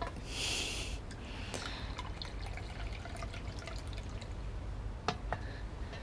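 Water poured briefly into a china teacup, followed by light clicks and drips of the porcelain cups.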